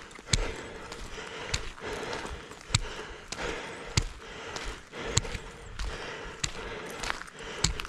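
Bicycle riding up a gravel road: tyres crunching over loose stones, with irregular sharp knocks and rattles from the bike about every half second to a second.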